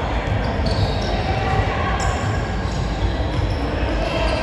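Basketball game in an echoing gym: a ball bouncing on the court amid a steady din of players' and spectators' indistinct voices.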